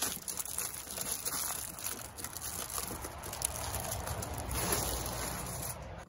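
Aluminium foil crinkling and rustling as the sides of a large foil food packet are rolled in and pressed down by hand.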